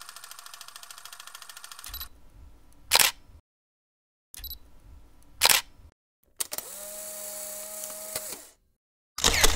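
Camera shutter sounds: a rapid burst of shutter clicks for about two seconds, then two single sharp shutter clicks a couple of seconds apart. Near the end there is a steady tone lasting about two seconds.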